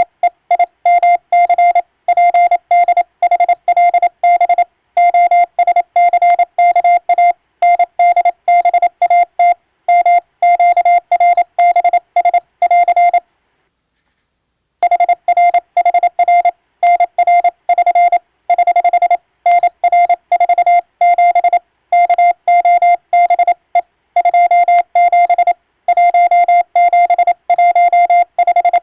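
Morse code sent with an electronic keyer: a single steady beep tone keyed rapidly into dots and dashes, spelling out an English-text radiotelegram. The keying stops for about a second and a half about halfway through, then resumes.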